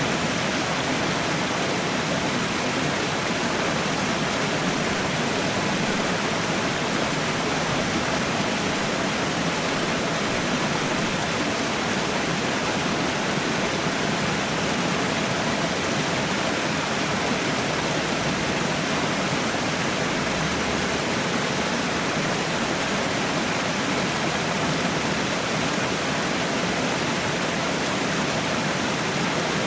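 Waterfall: water falling steadily into a pool, an even rushing noise that doesn't change.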